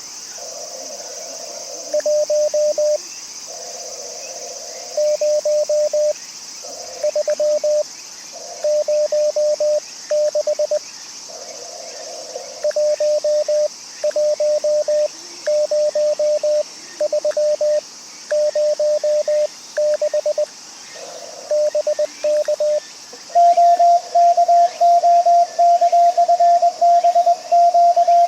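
Morse code (CW) tones from an amateur radio transceiver, keyed in short groups of dots and dashes with brief pauses between them. About 23 s in, a louder, slightly higher-pitched tone takes over and keys on steadily: the transceiver's sidetone as the station sends.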